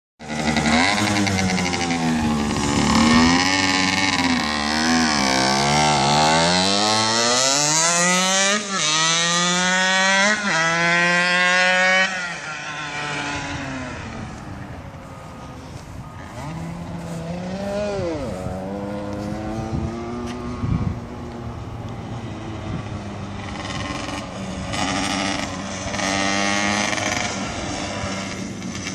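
Shifter kart's two-stroke engine pulling away hard through the gears, its pitch climbing and dropping back at each upshift for the first dozen seconds. Then it is fainter at a distance, revs rising and falling as it circles.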